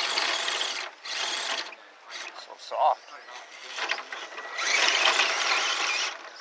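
Electric motors and geared drivetrains of 1/10-scale RC crawler trucks whining in bursts under throttle as they claw up a steep dirt bank. There are three main bursts, the longest from about four and a half to six seconds, and a brief loud squeal near the middle.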